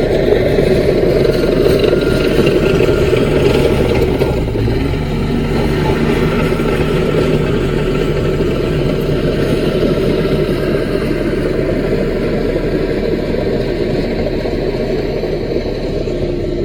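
Diesel engine of a small Caterpillar bulldozer running steadily, its note shifting and easing slightly about five seconds in.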